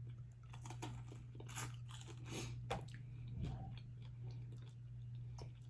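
Close-miked eating: irregular wet clicks and smacks of chewing food, over a steady low hum.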